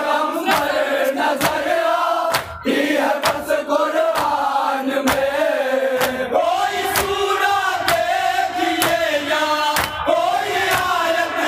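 Men's group voices chanting a Shia mourning salam (nauha) in unison into a microphone, over a regular beat of hands striking chests (matam).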